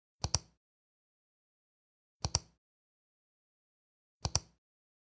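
Computer mouse clicking three times, about two seconds apart; each click is a quick pair of ticks, button press then release.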